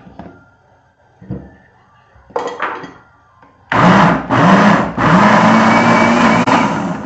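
Countertop blender pureeing cooked sweet corn: two short pulses, then a run of about two seconds, its motor whine rising as it spins up each time.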